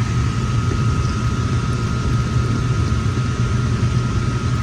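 Air handler running, with a churning low rumble and a steady high tone, as its condensate is sucked back into the unit instead of draining. The clogged coil lets almost no air across it, so the unit keeps overflowing.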